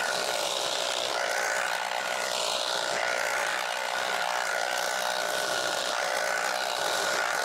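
Battery-powered tea-harvesting machine, a hedge-trimmer-type cutter, running steadily while cutting tea, a steady electric whine with no strong engine sound.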